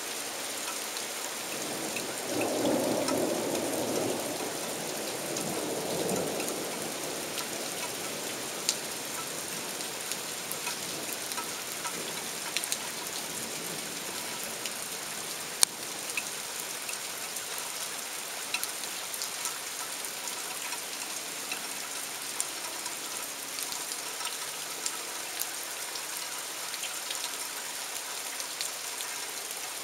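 Heavy torrential rain falling steadily, with a low rumble of thunder that swells about two seconds in and fades over the next five seconds. There are scattered sharp taps from drops hitting close by.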